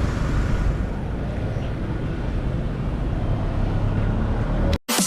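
Steady outdoor rumble of road traffic with wind on the microphone, cutting off abruptly near the end.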